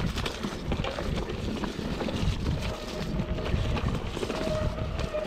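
Mountain bike descending a dirt forest singletrack: tyres rolling and the bike rattling over bumps and roots, with wind on the handlebar camera's microphone. A faint steady whine joins about halfway through.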